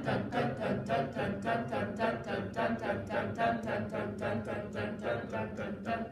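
A choir of singers chanting 'dun' in unison on steady eighth notes, about five pulses a second, keeping an even beat like a metronome.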